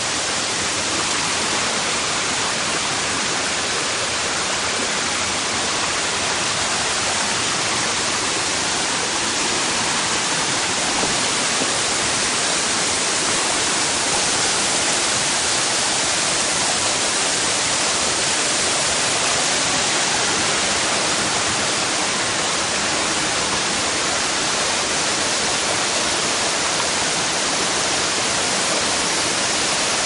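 Waterfall and rocky stream: water rushing steadily over boulders in one constant hiss.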